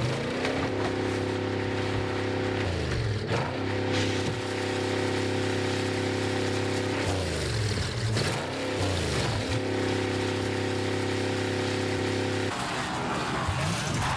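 Race car engines at speed: a steady, many-toned drone, broken about three seconds in and again midway by cars going by with swooping pitch, and giving way near the end.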